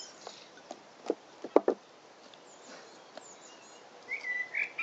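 Sticky slime made of glue and shaving cream squelching as a hand kneads and pulls at it in a bowl, with a few short wet smacks a little over a second in. A bird sings briefly near the end.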